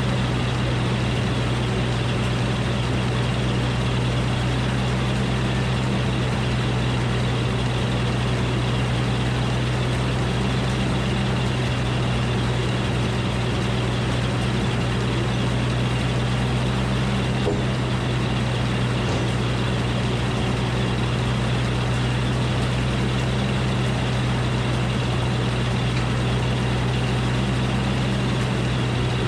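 Engine powering a Frick circular sawmill, running at a steady speed with a strong low hum and no change in load.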